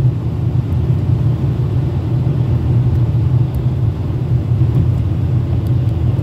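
A car driving on a rain-wet road, heard from inside the cabin: a steady low rumble of engine and tyre noise.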